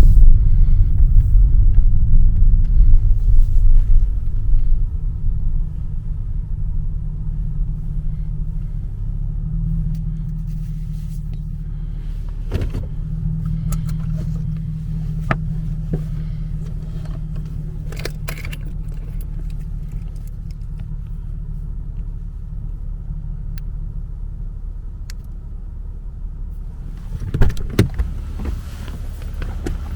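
Mercedes W220's V8 engine and exhaust running with a steady low drone, louder for the first few seconds and then settling lower. A few short knocks come through it, with the loudest cluster near the end.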